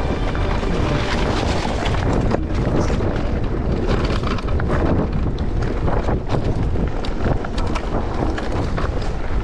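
Wind buffeting the microphone of a mountain bike riding down a dirt trail, with frequent clicks and rattles from the bike jolting over the rough ground.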